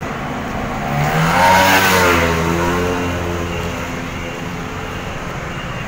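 A motor vehicle passing close by in street traffic: its engine swells to a peak about a second and a half in, then drops in pitch as it goes past and fades, over a steady hum of traffic.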